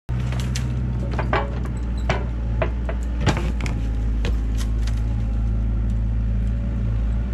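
Kubota KX121-3 mini excavator's diesel engine running steadily, with a scatter of sharp knocks and cracks as the bucket grabs a sawn log and lifts it. The loudest knock comes a little over three seconds in.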